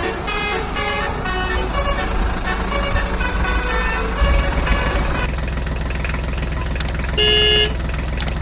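Vehicle engine running with a steady low rumble, under a melodic jingle for the first five seconds, then alone; a single short horn honk sounds about seven seconds in.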